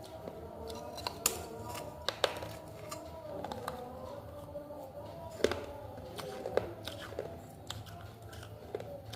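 A person chewing and eating meat curry close to the microphone: wet mouth smacks and sharp clicks at irregular intervals, a few of them louder, over a faint wavering tone.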